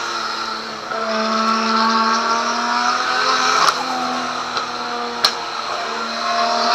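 Nissan RB20DET turbocharged straight-six running through a straight-pipe 60 mm dual exhaust, at light throttle with the engine note holding a fairly steady pitch with small dips. Two short sharp clicks sound partway through.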